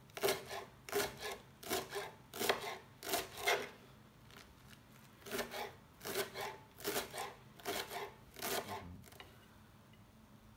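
Kitchen knife chopping thin leeks on a plastic cutting board: a run of short cutting strokes, two to three a second, that pauses about four seconds in, resumes about a second later and stops about nine seconds in.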